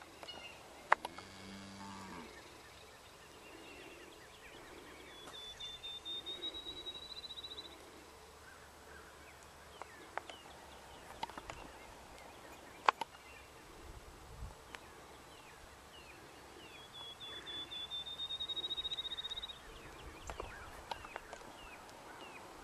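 Outdoor pasture ambience of birds chirping, with two buzzy, slightly rising trills of about two and a half seconds each. A few sharp clicks are the loudest sounds.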